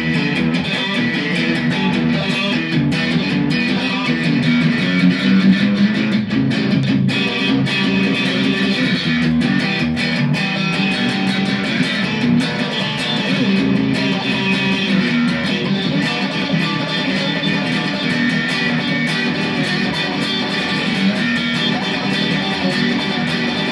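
Fender Sixty Six six-string electric guitar played continuously through an overdriven amp, two pickups selected together.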